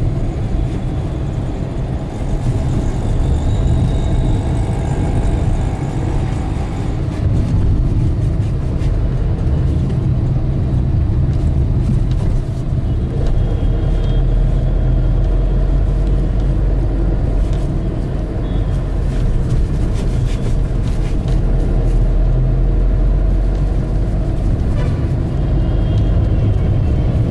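Steady low rumble of motor-vehicle traffic, loud and continuous.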